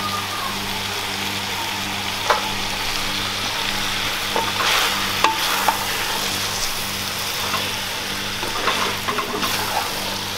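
Wooden spoon stirring goat tripe and chopped tomatoes in a clay pot while the masala sizzles as it fries, with a few sharp knocks of the spoon against the pot.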